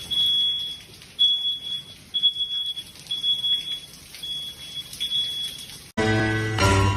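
Electronic alarm beeping on one high, piercing tone, about six half-second beeps roughly once a second. It cuts off abruptly near the end into music.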